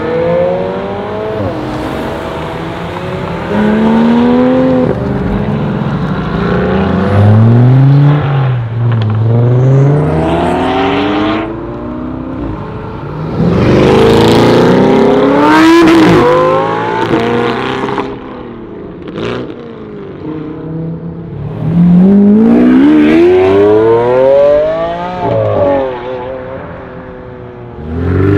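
Supercar engines accelerating hard, several times in succession: each revs up, shifts and climbs again, loudest about halfway through and again near the end.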